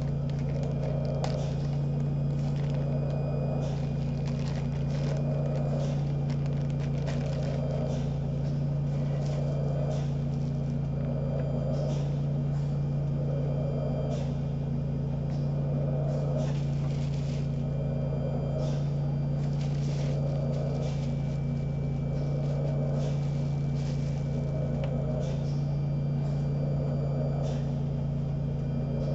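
Home mechanical ventilator cycling, with a rhythmic whoosh about every two seconds over a steady low hum. Occasional light clicks come from small items being handled.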